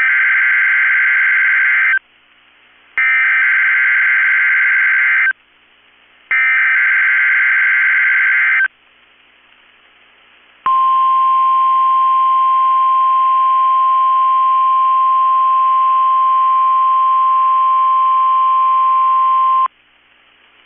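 NOAA Weather Radio weekly test alert from KEC65: three buzzy, screeching bursts of SAME digital header data, each about two seconds long and a second apart, then the 1050 Hz warning alarm tone sounding steady and loud for about nine seconds before cutting off.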